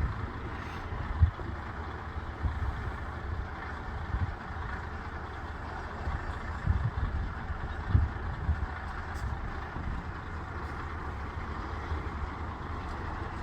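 A bus engine's low rumble, rising in a few swells, under a steady rushing hiss of blizzard wind.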